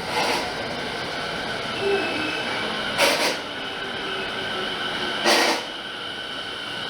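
Electric commuter train running, with a steady high-pitched whine and a short rasping burst recurring about every two seconds.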